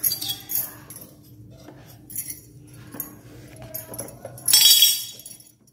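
Light clinks and knocks of a steel ladle against the roti maker and the batter bowl, with a louder half-second rasping burst about four and a half seconds in.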